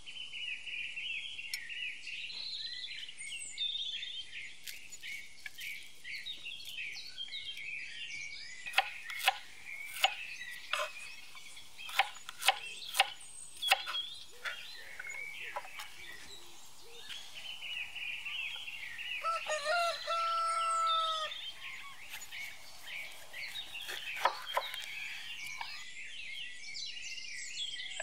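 Small birds chirping and singing steadily all through. A run of sharp knocks from a kitchen knife chopping garlic on a wooden cutting board comes about a third of the way in, louder than the birdsong. A rooster crows once, about two-thirds of the way through.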